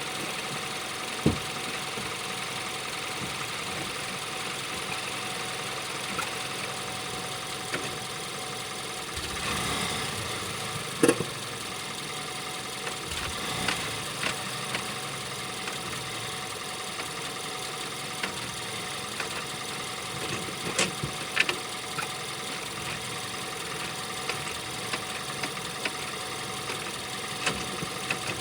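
Skoda Yeti's 1.2 TSI four-cylinder petrol engine running with a six-speed manual gearbox, broken by sharp knocks in the drivetrain, the loudest about a second in and about eleven seconds in, with smaller ones later. It is the knock on pulling away and on the change between engine braking and acceleration whose cause the owner is trying to find, at 70,000 km.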